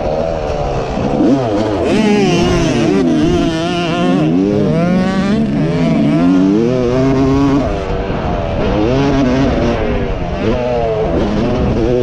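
Dirt bike engine being ridden hard. It revs up and backs off over and over, its pitch climbing and sweeping down several times as the throttle is opened and chopped for the jumps and turns.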